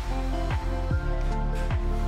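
Chill electronic background music: sustained chords over deep bass hits that fall in pitch, about four of them in two seconds.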